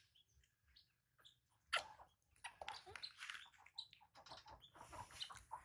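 A single sharp tap, then a thin plastic snack packet crinkling and crackling as it is handled, from about two seconds in.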